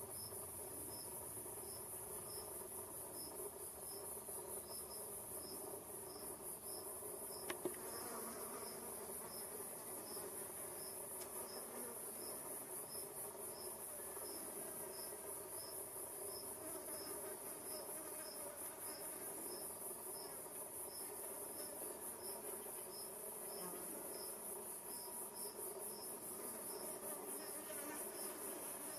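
Wild insects calling: one keeps up a steady high-pitched trill while another gives a short high chirp about one and a half times a second. Under them is the low buzzing of flies around fresh dung. A single sharp tick comes about seven and a half seconds in.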